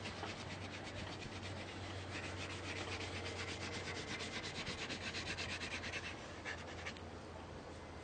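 A paintbrush scrubbing back and forth on canvas in quick, even strokes, several a second, dying away about seven seconds in.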